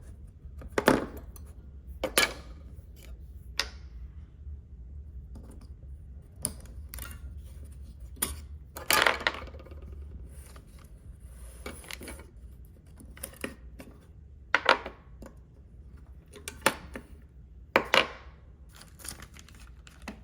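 AAA batteries being pried out of a Kwikset Halo smart lock's plastic battery cartridge and handled: about a dozen sharp, irregular clicks and small clatters, some in quick pairs.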